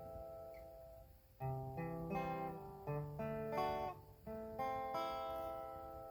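Acoustic guitar music: plucked notes and chords, several struck in a row a little after a second in, the last chord left to ring out and fade.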